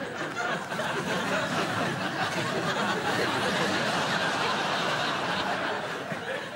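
Studio audience laughing together, swelling about a second in, holding, then easing off near the end.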